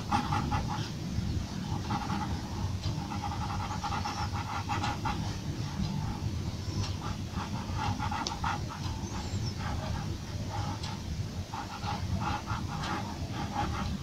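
Graphite pencil scratching on paper in quick hatching strokes, about five a second in short runs, over a steady low hum.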